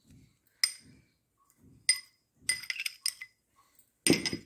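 Kitchen utensils clinking against a plate as chopped ingredients are tipped onto it: a series of short, ringing clinks, several in quick succession about two and a half seconds in and a louder one near the end.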